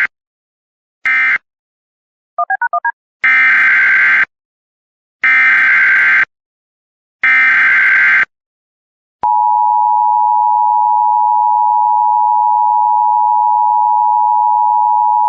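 Emergency Alert System tones. Two short data bursts come first, the last of the previous alert's three end-of-message bursts, then a quick run of four beeps. Three roughly one-second SAME header bursts of warbling data tones follow, and about nine seconds in the steady two-tone EAS attention signal begins.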